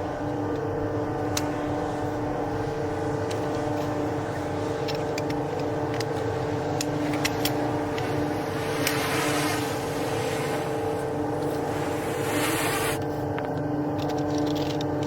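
A vehicle engine running steadily at an even pitch, with a low rumble beneath. A rushing hiss joins it for a few seconds in the middle, and there are a few light clicks.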